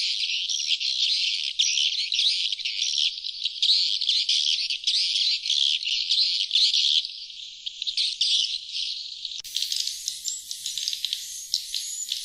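Recorded sriti swiftlets (glossy swiftlets) twittering in a dense, fast stream of high chirps, a lure call played to draw wild swiftlets to a nest house. About three quarters of the way in it switches abruptly to a thinner, hissier run of chirps.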